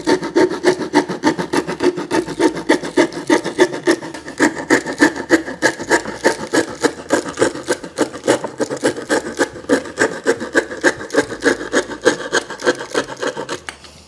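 Folding multitool saw blade (Swiss+Tech 16-in-1) sawing by hand through a 1 cm thick pine board: quick, even back-and-forth strokes, about four a second, stopping at the end as the cut goes through.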